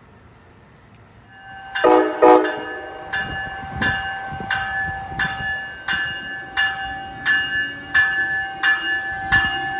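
Two short train horn blasts, then a locomotive bell ringing steadily at about three strokes every two seconds.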